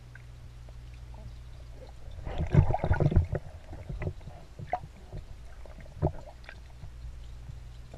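Muffled sloshing and splashing of pool water heard with the microphone underwater, over a steady low hum. The splashing is loudest about two to three and a half seconds in and is followed by a few scattered knocks.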